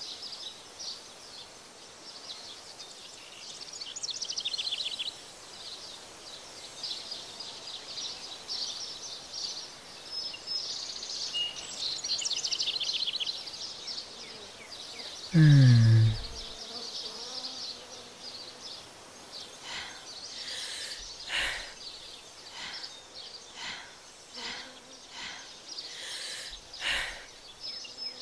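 Insects chirping in quick high trills throughout. About halfway through, a loud low tone falls in pitch for about a second. Short sharp chirps follow in the later part.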